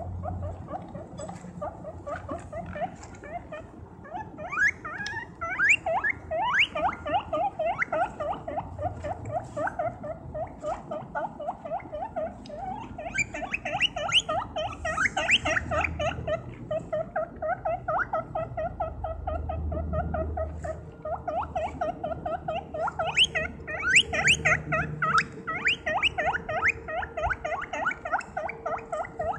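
Guinea pig squeaking loudly and without pause: a rapid string of short rising squeaks, several a second, swelling louder in a few stretches.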